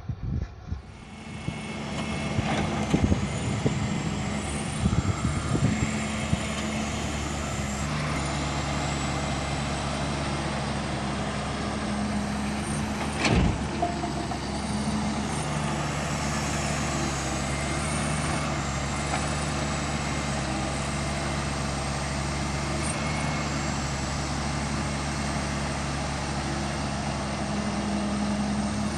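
Heavy diesel machinery engine running at a steady speed throughout. There are several knocks in the first few seconds and one sharp knock a little under halfway through.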